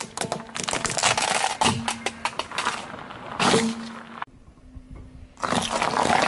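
Plastic toy car-track pieces cracking and snapping under a car tyre as it rolls over them: a dense run of cracks for about four seconds. After a sudden break, a second burst of crunching and cracking begins about five seconds in as the tyre crushes another object.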